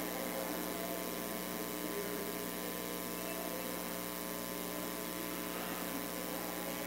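Steady electrical hum with a background hiss; no other distinct sound stands out.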